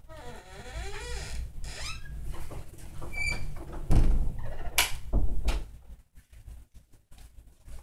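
A door's hinges squeak in long wavering glides as it is opened into a room. A loud thump follows about four seconds in, then a sharp click.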